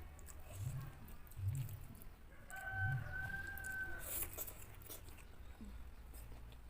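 A rooster crowing once, a held call of about a second and a half starting a little after two seconds in, over soft chewing thuds.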